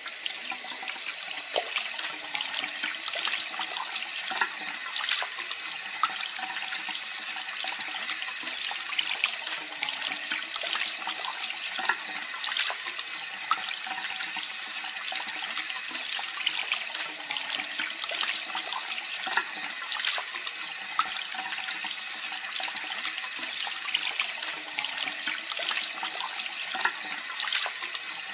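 Water running steadily from an open tap, splashing with a constant rush and small irregular spatters.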